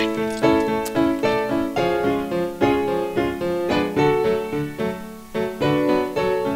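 Piano music: chords struck at a steady pace, each note fading after it is played, with a brief softening about five seconds in.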